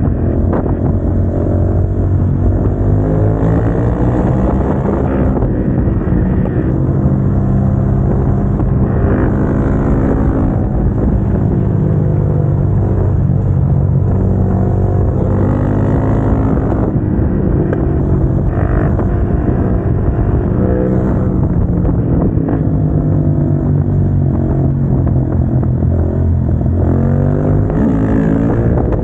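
Motorcycle engine with an aftermarket exhaust, heard onboard while riding. It accelerates and shifts up through the gears several times, its pitch climbing and then dropping back at each shift, with another long climb near the end.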